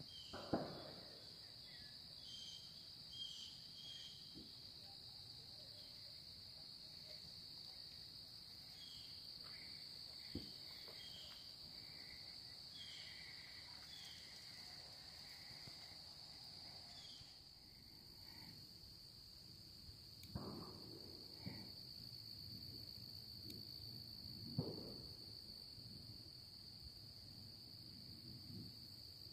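Faint, steady, high-pitched trill of insects that runs without a break, with a few faint chirps over it and several soft thumps, the clearest two about two-thirds of the way through.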